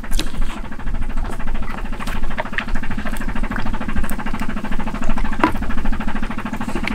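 Small boat engine idling with a steady, fast pulse, with a few sharp clicks and knocks over it.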